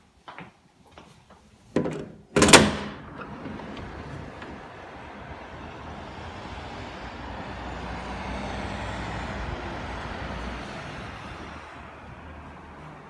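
A few light clicks and a knock, then a sharp loud bang, like a door shutting, about two and a half seconds in, followed by a steady rushing noise with a low hum that swells slightly and eases off near the end.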